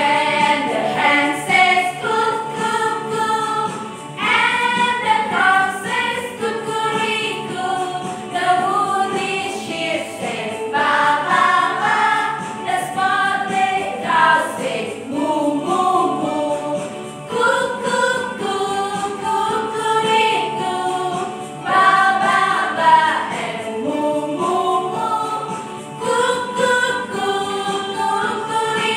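A group of women singing a children's action song together in unison, with electronic keyboard accompaniment.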